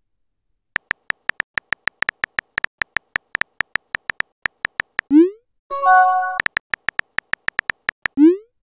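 Phone keyboard tap clicks from a texting app, about six a second, as a message is typed, then a quick rising whoosh as it sends and a short electronic chime; typing clicks start again, ending with another send whoosh near the end.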